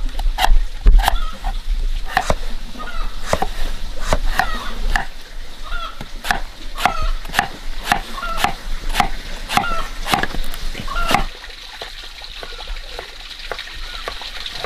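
Fish feeding at the surface of a pond, a quick irregular run of sharp plops and slurps as they snap at the thrown food. The splashing stops about eleven seconds in, leaving a faint steady high hiss.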